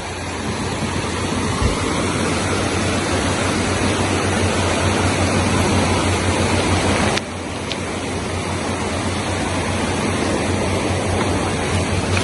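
Swollen, muddy river rushing steadily, its flow raised by heavy rain upstream. The rush drops a little in loudness, suddenly, about seven seconds in.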